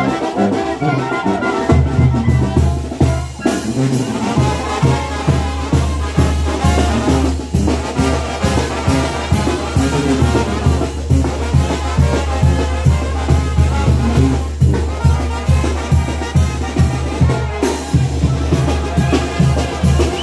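Brass band music with a steady beat and a low bass line that comes in about two seconds in.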